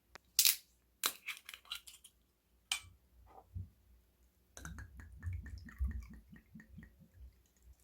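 Crunching of a crisp, deep-fried breaded pork cutlet: a few sharp crackles as it is bitten into, then a dense run of chewing crunches from about four and a half seconds in, with the breading crumbling.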